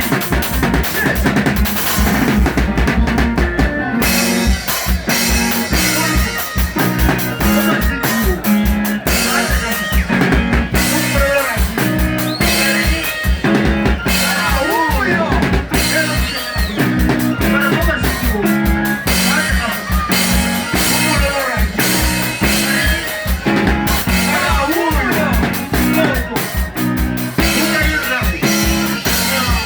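Band music: a drum kit keeps a steady, fast beat over a bass line, with melodic parts that slide between notes.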